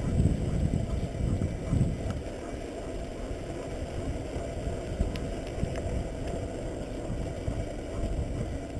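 Wind buffeting the microphone of a bicycle-mounted camera over the low, steady rumble of bicycle tyres rolling on asphalt.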